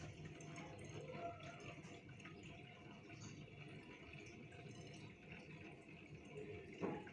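Faint, steady trickling and bubbling of aquarium water from the tank's filters, with a single short knock near the end.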